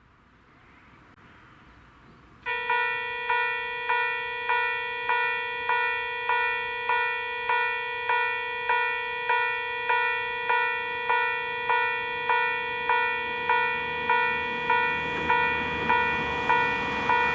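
A Japanese railway level-crossing warning bell starts suddenly about two and a half seconds in and rings steadily, a little under two strikes a second, each strike ringing out briefly: the crossing is signalling that a train is approaching. A low rumble grows under it near the end.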